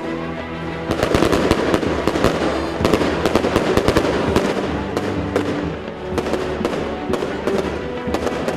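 A dense, irregular crackle of sharp bangs starting about a second in and running on, many per second, with held music tones underneath.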